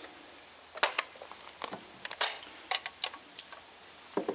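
A series of sharp, irregular metallic clicks and clinks: steel-cased 7.62×51 cartridges being pressed into an FN FAL magazine. The loading is stiff and uneven with this steel-cased ammunition.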